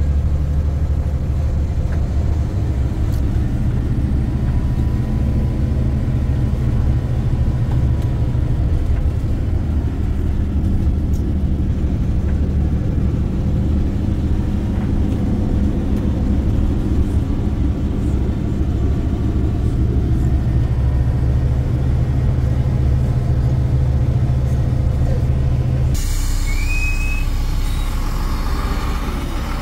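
Steady low engine and road drone inside a truck's cab while driving on a dirt road. About four seconds before the end it cuts abruptly to thinner heavy-machinery noise heard in the open, with two short high chirps.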